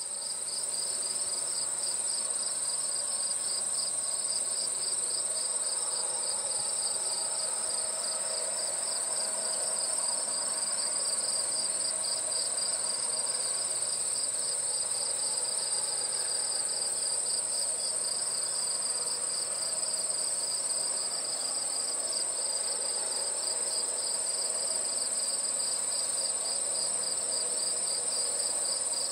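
Steady late-summer chorus of insects such as crickets: a high continuous buzz over a lower, fast-pulsing trill, unbroken throughout.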